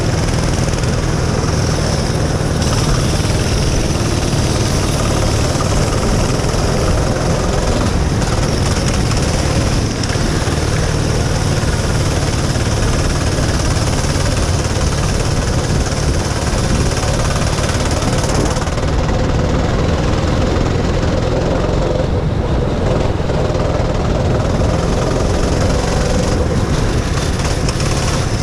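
Rental go-kart engine running steadily at racing speed, heard from a helmet-mounted action camera with wind rushing over it.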